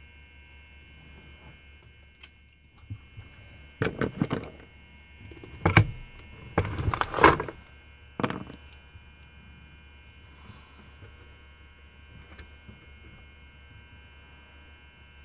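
Small metal lock parts and tools clicking and clinking as they are handled, with a few short bursts of jangling rattle in the middle, the loudest about seven seconds in.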